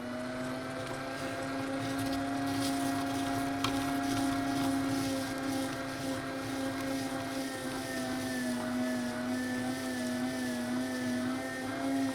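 Electric meat grinder's motor running with a steady hum as it grinds chocolate cookies. Its pitch wavers slightly in the second half.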